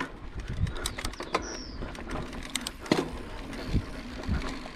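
Mountain bike going over a rocky trail: irregular knocks and clicks of tyres and frame on rock over a low rumble. A short high chirp falls in pitch a little over a second in.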